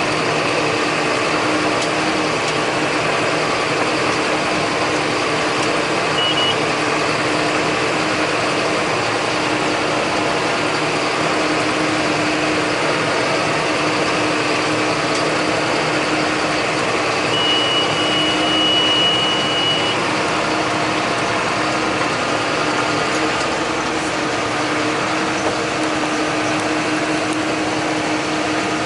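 John Deere 8100 tractor's six-cylinder diesel running steadily under load while baling. A high steady electronic beep sounds briefly about six seconds in, and again for two to three seconds later on.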